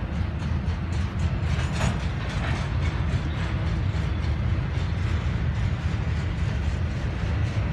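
Double-stack container train's loaded well cars rolling past: a steady rumble of steel wheels on rail, with repeated clacks as the wheels pass over the track.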